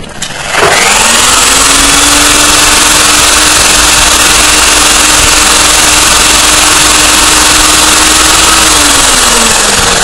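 Homemade centrifuge spinning a tube of magnetite suspension: its motor whine rises quickly in pitch as it spins up, then runs loud and steady with a strong rushing noise. Near the end the pitch falls away as it winds down.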